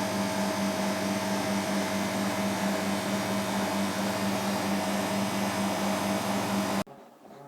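Refrigeration condensing unit running, its hermetic compressor humming steadily under the condenser fan's rush of air. The new solid-state start relay is chattering, a sign of the relay dropping in and out. The sound cuts off suddenly near the end.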